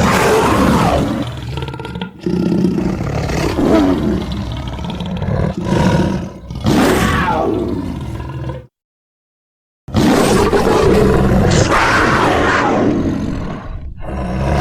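Creature roar sound effects: several loud, rough roars with falling pitch, then, after a second of silence about nine seconds in, one long roar that cuts off sharply at the end.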